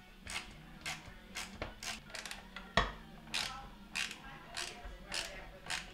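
A hand driver clicking as screws are snugged down on a dishwasher's rinse-aid dispenser assembly: a run of short, sharp clicks about two a second, one louder than the rest about three seconds in.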